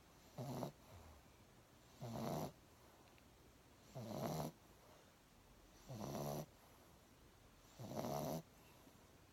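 A sleeping pet snoring: five short, regular snores, one about every two seconds.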